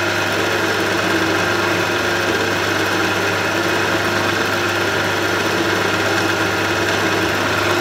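Milling machine spindle running steadily while a small drill bit cuts a hole in a 3 mm brass bezel, a constant even machine hum.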